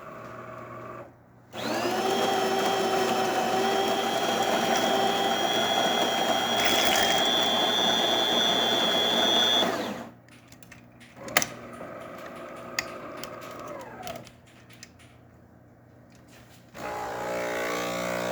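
DeLonghi Perfecta super-automatic espresso machine's built-in burr grinder grinding beans for a single shot: a loud, steady whine that starts about a second and a half in and stops after about eight seconds. Quieter motor whirring and clicks follow, then near the end the pump buzzes as the shot begins.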